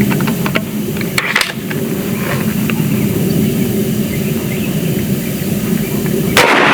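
Steady low background rumble with a few light clicks. Near the end comes a sudden loud blast as the .72-calibre AEA Zeus big-bore PCP air rifle fires.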